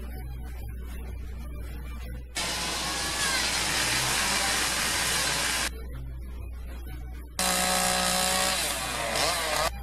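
A handheld angle grinder with a carving disc grinds into wood for about three seconds; after a short lull with a low hum, a gas chainsaw runs and revs as it cuts into a wooden carving near the end.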